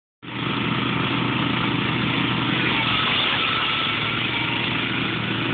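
Engines of two garden tractors, a John Deere 314 and an Ariens, running steadily under load as they pull against each other on a tow rope. The sound cuts in abruptly just after the start.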